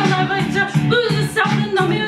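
Karaoke: a pop backing track with a steady beat, with a woman singing along over it.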